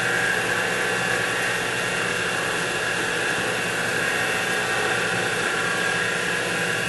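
X2 mini mill spindle running steadily with the drill bit turning in the hole, a constant motor whine. The bit is being left to spin so chips can work back up the flutes.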